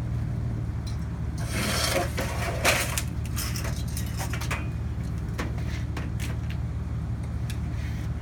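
Scraping and rubbing for a second or two, with a sharp knock, then scattered clicks and knocks: handling of a stripped pop vending machine's metal shell. A steady low hum underlies it all.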